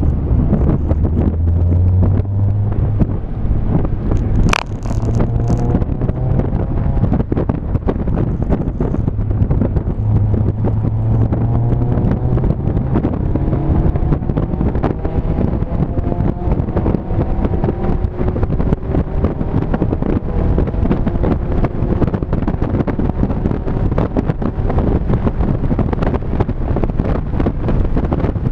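Mazda MX-5 roadster's four-cylinder engine pulling hard at track speed with the top down, its pitch climbing several times as it works through the gears, under heavy wind rush in the open cockpit. One sharp click about four and a half seconds in.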